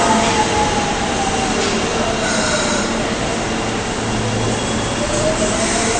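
Osaka Municipal Subway 22 series train pulling away, its traction motor drive whining over a steady rumble of wheels on rail. The whine glides down in pitch at first and rises again near the end.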